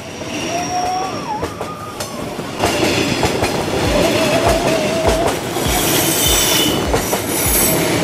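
Railway train wheels rolling past close by on the rail, with squealing tones that wander in pitch. It gets louder about two and a half seconds in, when a regular low thumping of wheels over the rail starts, about two a second.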